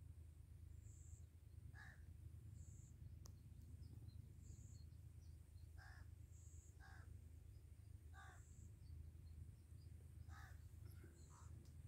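Near silence with faint bird calls: several short calls spaced a second or more apart, with fainter high chirps between them.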